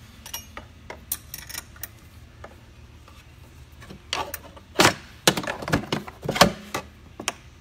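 Metal hand tools clicking and clinking against a snowmobile clutch: a 7/16 wrench and an Allen key being fitted to the belt-deflection adjuster set screw and jam nut. A few scattered clicks at first, then a run of sharper knocks from about four to seven seconds in.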